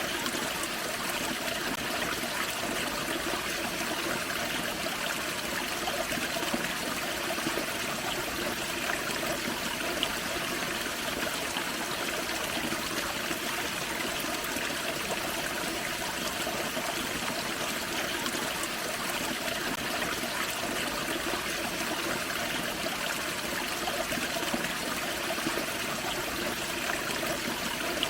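Small forest creek and low waterfall, water flowing and trickling steadily over rocks.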